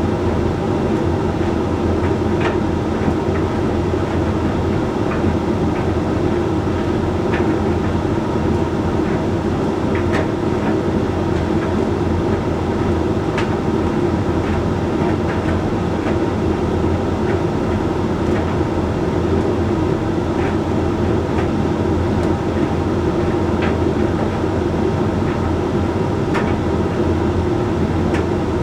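Hoover Link X Care condenser tumble dryer running a drying cycle: a steady hum of motor, fan and turning drum, with faint irregular ticks now and then.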